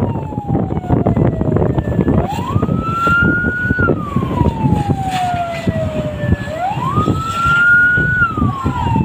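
Fire engine siren wailing in slow cycles: each rise is quick, holds briefly at the top, then slides slowly down, with new rises about two seconds in and again near seven seconds. A steady rushing noise runs underneath.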